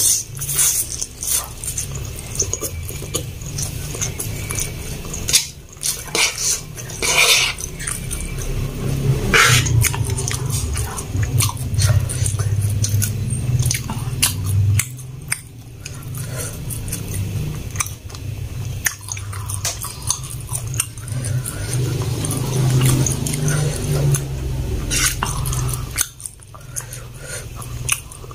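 Close-miked chewing of fried egg and spicy instant fried noodles, with wet mouth clicks and smacks throughout. A steady low hum runs underneath.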